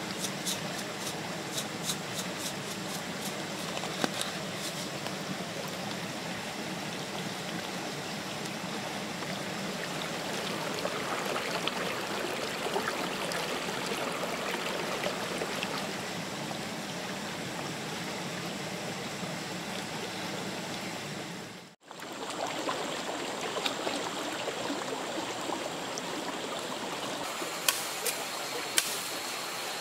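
Small rocky stream flowing steadily. It drops out abruptly about two-thirds of the way in and returns, and a few sharp knocks sound near the end.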